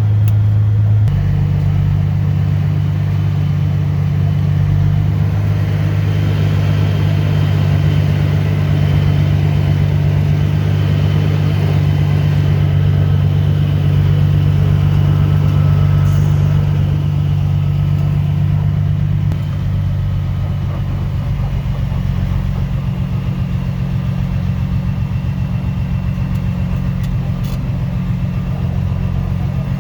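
A motor vehicle's engine running steadily, its speed picking up about a second in and easing back about two-thirds of the way through.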